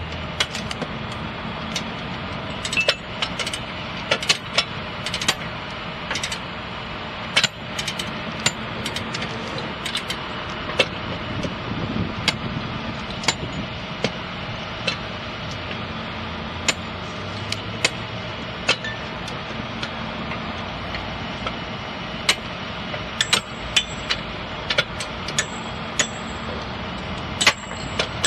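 Railroad track workers' spike mauls striking steel spikes and tie plates: sharp metal clanks at an uneven pace, sometimes several in quick succession. An engine idles steadily underneath.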